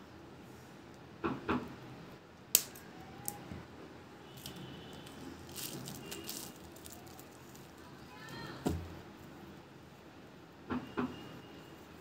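Handling noise from a coiled white Cat6 cable being uncoiled in the hands: rustling of the plastic jacket with scattered knocks and clicks as the loops and plastic RJ45 plugs knock together. The sharpest is a single click about two and a half seconds in.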